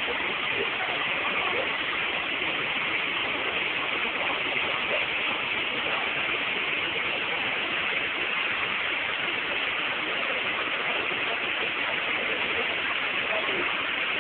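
Steady rushing of a waterfall: an even hiss of falling water that does not let up.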